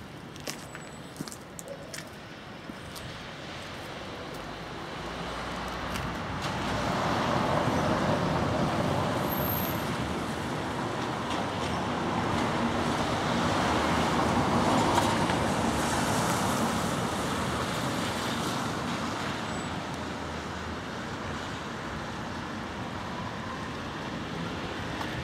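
Road traffic noise from passing vehicles, swelling from about four seconds in, peaking twice and slowly fading.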